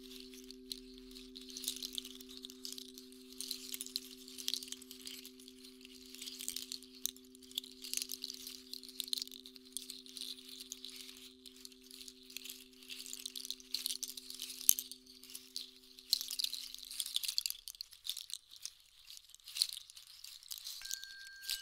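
Two tuning forks hum as pure, steady low tones that fade out about three-quarters of the way through, over a continuous high, crackling rustle. Near the end a new, higher ringing tone begins.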